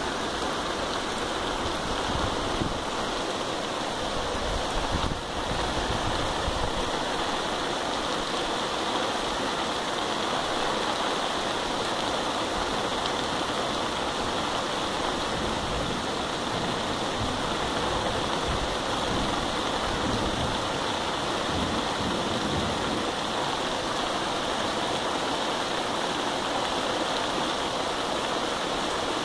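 Heavy rain pouring down steadily, a constant even hiss.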